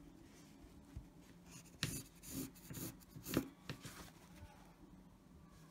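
Pencil scratching across a felt sheet in a few short strokes, with the felt being rubbed and shifted under the hand.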